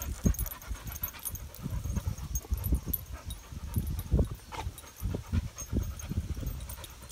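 Dogs panting close by, over an uneven low rumble with scattered soft knocks.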